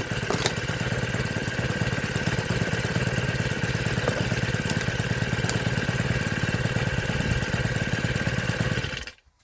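STIHL FS65-4 strimmer's small single-cylinder four-stroke engine running steadily without choke, back in running order after standing unused for years. The sound cuts off suddenly near the end.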